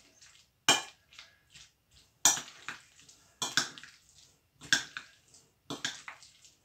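A spoon stirring diced boiled potato and mayonnaise in a glass bowl: about five short mixing strokes, roughly one a second, with fainter scrapes between.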